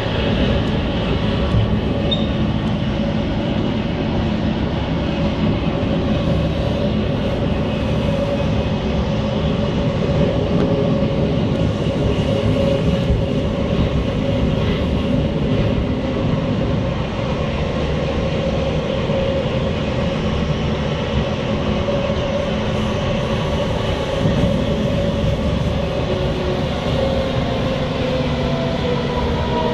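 C151 MRT train in motion, heard from inside the passenger car: a steady traction-motor hum over the rumble of wheels on rail. Near the end the motor tones slide down in pitch.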